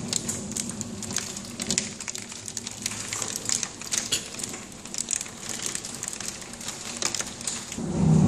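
Heavy rain mixed with small hailstones pelting a surface: a dense, irregular patter of sharp ticks and cracks over a steady hiss. Near the end a low rumble swells up and becomes the loudest sound.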